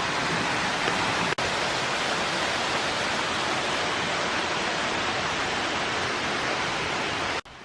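Steady rush of flowing creek water over rocks. It cuts off abruptly near the end.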